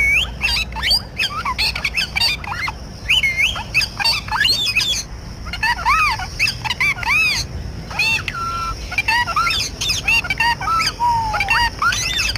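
Parrot calling: a rapid string of short whistles, chirps and squawks, many of them arching up and down in pitch, with a few brief pauses.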